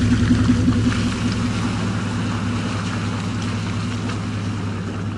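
Dodge pickup truck's engine running at steady revs, a low drone, over a hiss of tyres working through mud in two-wheel drive.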